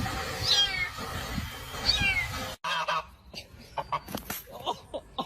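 A cat meowing twice, each meow high and falling in pitch, about a second and a half apart. The sound breaks off abruptly about two and a half seconds in, and a quieter stretch of short scattered sounds follows.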